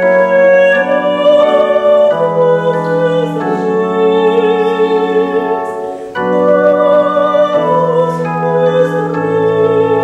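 Solo soprano singing classical style with wide vibrato, accompanied by held chords on an electronic keyboard. The sound dips briefly about six seconds in before the next phrase.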